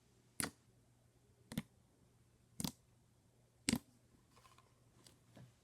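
Glossy homemade glue slime being squeezed and pressed by hand, giving four sharp clicky pops about a second apart, then softer small crackles near the end.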